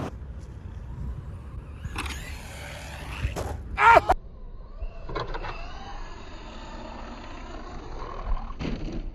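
Electric motor of a Traxxas RC monster truck whining, its pitch rising and falling as the throttle is worked: a short burst about two seconds in and a longer run from about five seconds in to near the end. A brief shout about four seconds in.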